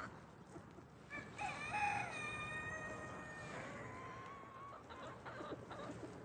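A rooster crowing once: one long call of about three and a half seconds starting about a second in, held high and then dropping in pitch toward the end.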